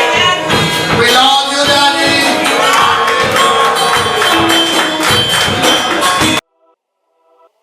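Upbeat music with singing and a steady percussive beat, cutting off suddenly near the end, followed by near silence.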